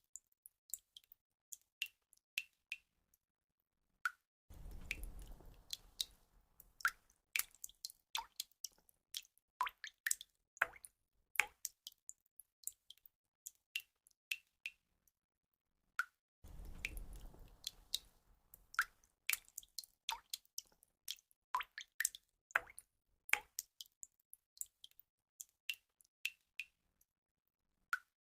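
Water drops falling one after another, each a short, sharp plink, several a second at uneven spacing. Twice, a soft low rushing noise swells up and fades over a couple of seconds. The run of drips repeats about every twelve seconds.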